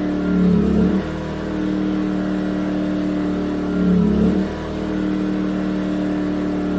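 Yamaha EF2000iS inverter generator's small single-cylinder four-stroke engine running on propane through a tri-fuel conversion: a steady drone that swells and warbles twice, about three and a half seconds apart. The swells are the engine surging, which rises and falls with the setting of the propane demand regulator's load block.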